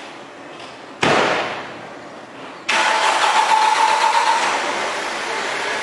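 A car door shuts with a thud about a second in. Then an Audi A6's engine starts suddenly, with a steady whine for a second or so, and keeps running.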